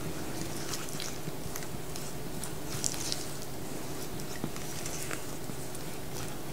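Spatula stirring slivered almonds through melted chocolate in a small bowl: soft, intermittent scraping with light clicks.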